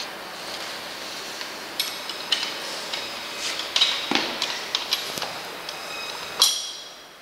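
Steel bolt, washers and wrench clinking against the steel tube frame of an ab exercise machine as a pivot bolt is fitted. Scattered sharp metallic clicks, some with a short ringing, the loudest near the end.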